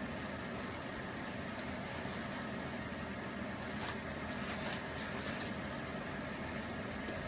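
Steady background hum, with a few faint brief rustles or taps.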